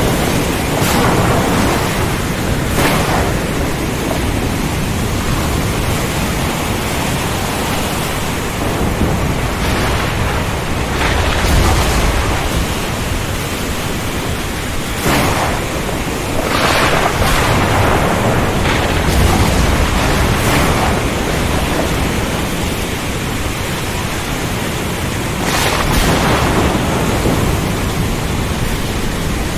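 Heavy rainstorm at sea: a dense, steady hiss of rain and wind with several brief sharp surges, and deep thunder rumbling, strongest about twelve and twenty seconds in.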